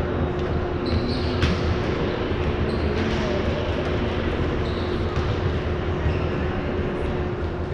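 A ball bouncing on a gym floor amid steady background noise of a large hall, with scattered knocks and a few short high squeaks.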